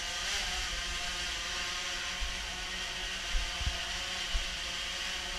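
DJI Phantom 3 Professional quadcopter's four motors and propellers lifting it off and holding it in a hover, a steady whirring hum with a high whine over it.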